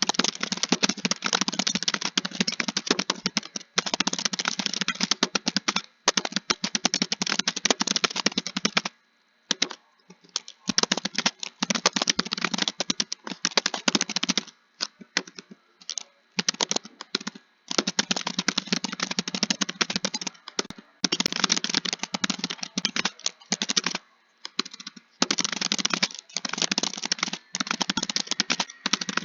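Computer keyboard typing in fast runs of keystrokes a few seconds long, broken by short pauses, the rhythm of text being copied out.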